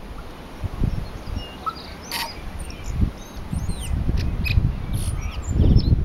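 Tui singing a scattered phrase of short, thin whistles, quick up- and down-sliding notes and a few sharp clicks. A low rumble runs underneath and grows louder near the end.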